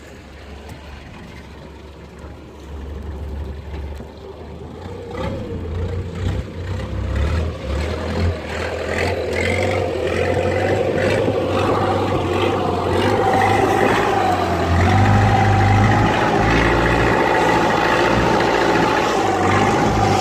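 Small fishing boat's engine being opened up: a low rumble at first, then rising in pitch and loudness over several seconds and holding a steady high run.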